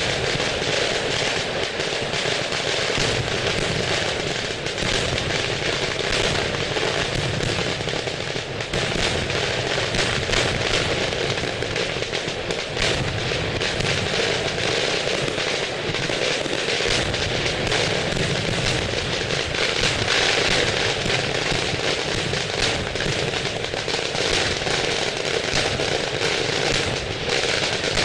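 Fireworks going off in a continuous barrage: a dense, unbroken crackle of rapid small bangs at steady loudness, with no single big blast standing out.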